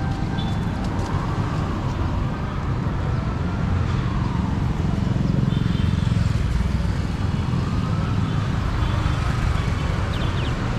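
Street traffic on a busy avenue: a steady low rumble of vehicle engines and tyres, with a whine that rises and falls as vehicles pass, twice.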